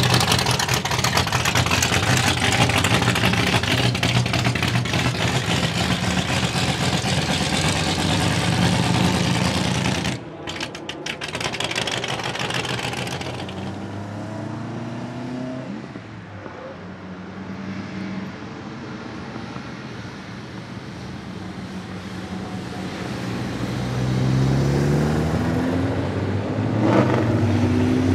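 A 1963 Ford Galaxie 500's Ford 427 V8 running loudly up close. About ten seconds in, the sound cuts to quieter V8 engine notes from several cars climbing a hairpin road. Near the end one engine pulls away with a rising pitch.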